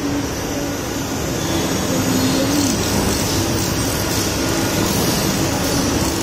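Steady din of factory machinery: an even, continuous noise with faint low humming tones underneath.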